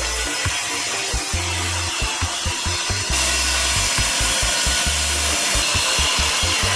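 Handheld circular saw running steadily as it rips through a sheet of plywood along a straight-edge guide, getting louder and brighter about three seconds in.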